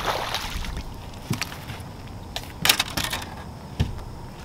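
A hooked bass splashing at the water's surface as it is reeled in, followed by a few sharp knocks and a quick rattle of clicks as the fish is swung aboard the boat and handled.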